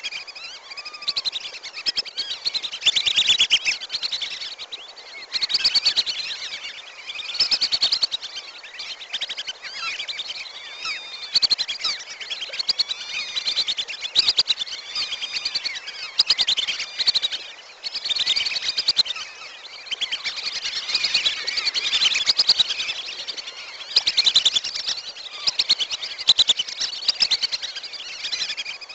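Lure recording of wandering whistling ducks (belibis kembang): a flock's many high whistling calls overlapping. The calls swell into louder bouts every few seconds and ease off between them.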